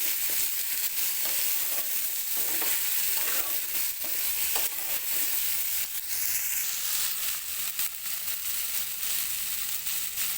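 Pieces of taro sizzling in hot mustard oil with turmeric and salt as they are stirred in the pan, with frequent scraping clicks of the stirring.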